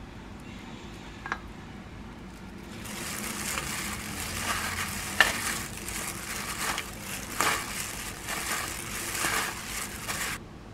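Shredded green onion being tossed by hand with seasoning in a stainless steel bowl: a dense crackly rustling with scattered sharp clicks, starting about three seconds in and stopping abruptly near the end. A single light click comes about a second in.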